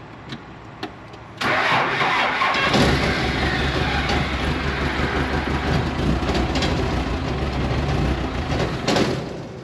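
A vehicle engine is cranked by its starter about a second and a half in, catches a little over a second later, and then runs steadily. Near the end the sound drops back down.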